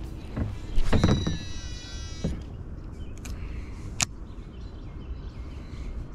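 Fishing tackle being handled and cast: a few knocks, the loudest about a second in, a brief high whirring whine with pitch sliding up and down, and a sharp click about four seconds in, over a steady low background rush.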